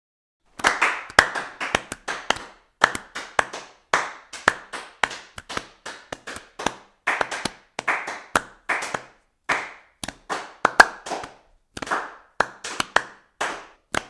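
Hand clapping: separate sharp claps coming unevenly, about two or three a second, starting about half a second in.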